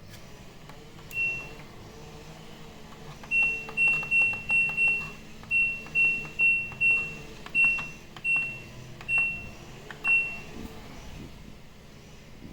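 LG washing machine's control panel beeping as its buttons are pressed: one short high beep, then an uneven run of about a dozen more at the same pitch, with faint clicks among them.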